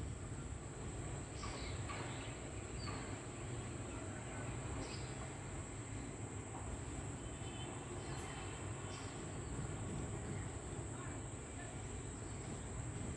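Quiet outdoor ambience: a steady high-pitched insect-like drone over a low rumble, with a few faint, short chirps scattered through.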